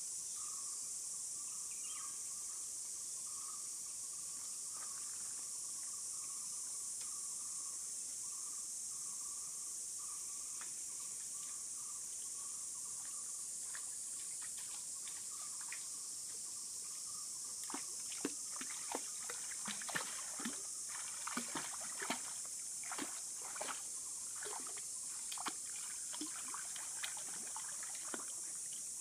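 A German shepherd wading in a shallow pool and splashing repeatedly as it paws and lunges at fish, starting a little past the middle and going on to the end. Under it, a steady high insect chorus.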